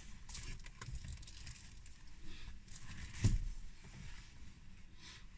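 Strong wind buffeting a parked car, heard from inside as an uneven low rumble, with small clicks and rustles and a single louder thump about three seconds in.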